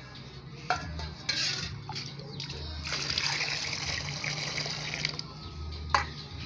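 Liquid pouring and splashing, louder in the middle, with three sharp clinks, two near the start and one near the end.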